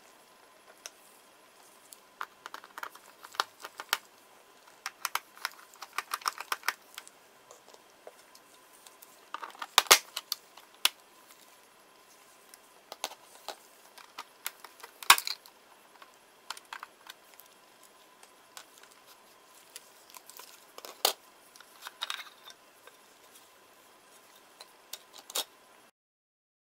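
Irregular clicks and taps of hard plastic and small metal parts as a Toshiba Satellite Pro L450 laptop is handled and taken apart, with a few louder knocks about ten and fifteen seconds in.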